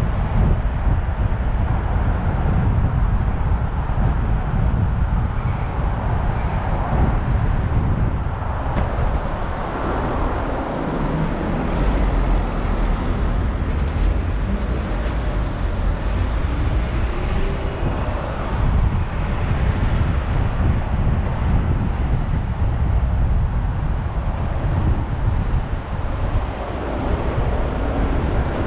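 A car driving along town streets: steady road and wind noise with a deep rumble that rises and dips a little but never stops.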